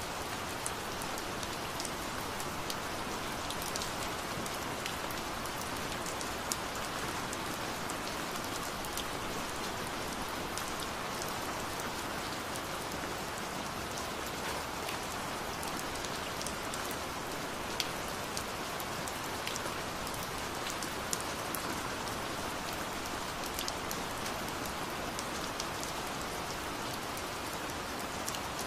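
Steady rain falling on a surface: an even hiss with scattered sharp drop ticks.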